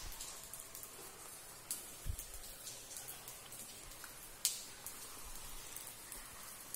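Water dripping and splashing onto a wet stone cave floor, a few irregular sharp drops over a steady faint hiss of running water, the loudest drop about four and a half seconds in.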